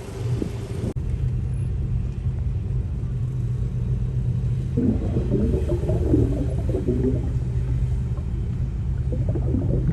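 Off-road vehicle engine running steadily with a low rumble. A rougher, uneven engine sound joins about halfway through.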